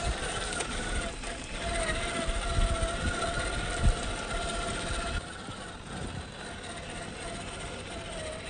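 Electric drive motor and gearbox of a 1/8-scale RC rock crawler whining steadily as it crawls over gravel. The whine fades somewhat past halfway and comes back near the end, with a couple of sharp knocks along the way.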